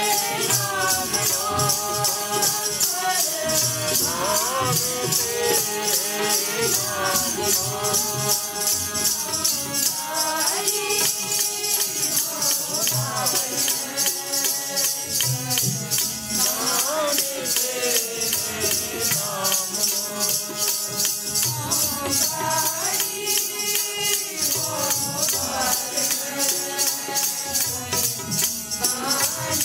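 Sikh devotional kirtan: voices singing a bending, held melody over sustained instrumental tones, with a fast, steady jingling percussion beat throughout.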